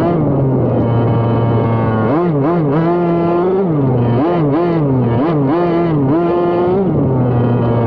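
Two-stroke gasoline engine of a 1/5-scale gas RC car revving: it runs at a steady speed at first, then blips up and down in several quick revs from about two seconds in, and holds a higher steady speed before dropping back near the end.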